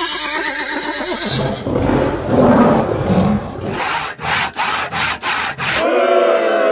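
A quick succession of unrelated library sound effects: a wavering pitched sound, then noisier sounds, then a run of sharp strokes, about five in a second and a half. A ringing tone starts near the end.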